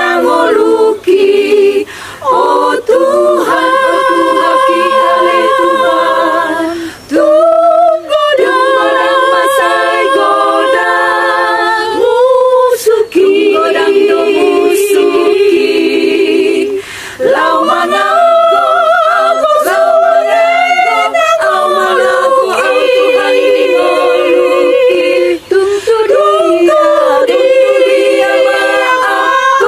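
Small women's choir singing a Batak-language hymn a cappella, several voices in harmony on long held notes with vibrato, breaking briefly for breath between phrases.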